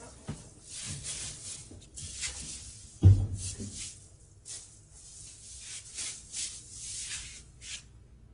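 Scattered short rustling noises, with a single heavy thump about three seconds in.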